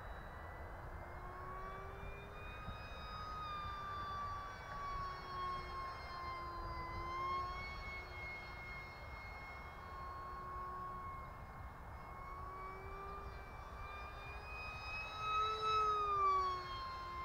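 Electric motor and propeller of a HobbyKing PrimeJet Pro RC model plane in flight on a 4S LiPo, a high whine that drifts up and down in pitch with throttle. It grows louder near the end, its pitch rising and then dropping as the plane passes.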